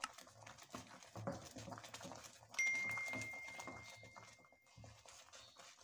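Faint, irregular stirring and bubbling of thick sweet milk vermicelli in a nonstick pan, worked with a silicone spatula. About two and a half seconds in, a single bell-like ding sounds and fades away over about two seconds: a subscribe-button notification chime.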